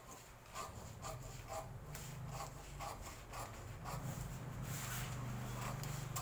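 Scissors snipping through pattern paper, a crisp cut about twice a second, over a low steady hum that swells about four seconds in.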